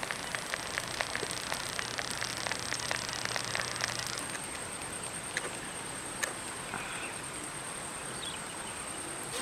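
Thick aloe vera halwa bubbling in a pan, with many small irregular pops for about the first four seconds, then fewer, over steady outdoor background noise.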